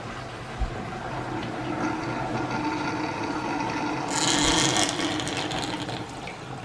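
Water draining fast out of a bathroom sink basin after the stopper is opened, running freely down a drain and P-trap just cleared of a slow-draining clog. A louder rush comes about four seconds in as the last of the water goes down.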